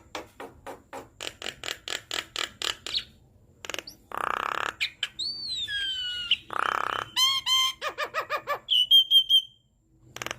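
Javan myna (jalak kebo) singing a varied song: a quick run of clicking chatter, then two harsh rasping calls, whistles that glide down in pitch, and a fast series of short repeated notes.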